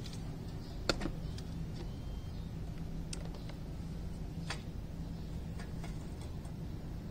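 A handful of light clicks and taps from handling small splicing gear, one sharper click about a second in, over a steady low hum.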